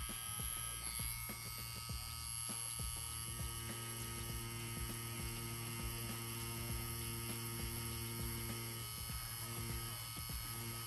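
CNC Q6 rotary tattoo pen running at about 9 volts with a three-round liner cartridge, giving a steady electric hum. Its higher tones waver a few times near the end.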